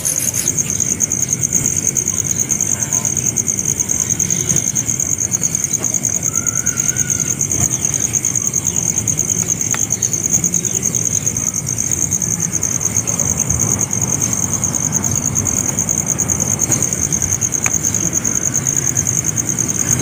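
Insects trilling in a steady, high-pitched drone, over a low rumble.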